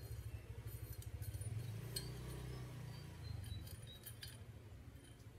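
Small metal clinks and taps, a few scattered and irregular, as a bolt and the metal parts of an electronic platform scale's column are handled and fitted, over a low steady hum.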